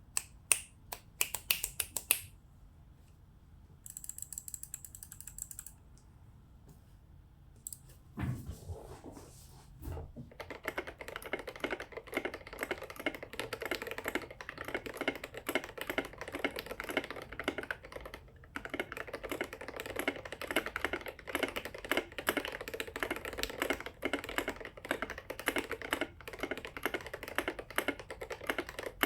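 Custom IDOBAO ID80 mechanical keyboard with lubed and filmed Gateron North Pole linear switches, a PC plate, case foam and SA keycaps being typed on. A few single key presses open it, then a quick even run of high clicks, a couple of deeper knocks, and from about ten seconds in steady fast typing.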